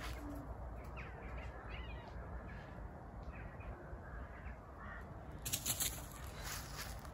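A cat squeaking: a series of short, high squeaks about a second apart. Near the end a brief burst of rustling and crunching on leaf litter.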